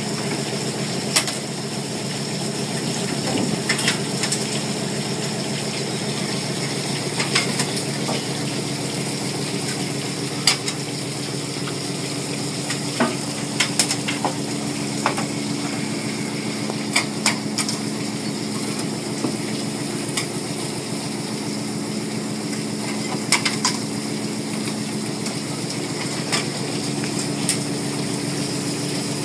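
Fishing boat's engine and longline hauler running with a steady hum, a higher tone joining about twelve seconds in, and scattered sharp metallic clicks and clinks as the line comes in over the hauler.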